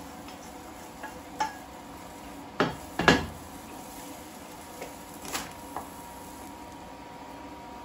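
Cookware clanking: a metal wok knocked against the rim of a cooking pot as spinach is scraped into it, and a wooden spoon tapping the pot while stirring. Scattered clanks, the loudest a pair about three seconds in.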